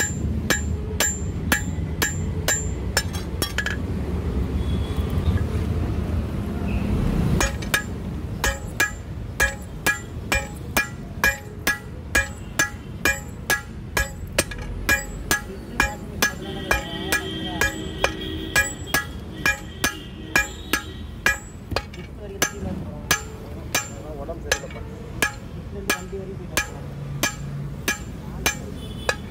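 Hand hammer striking a red-hot 20 mm steel rebar on an anvil, drawing its end out flat into a crowbar tip, with sharp metallic blows about two a second. The hammering stops for about four seconds a few seconds in, then goes on steadily.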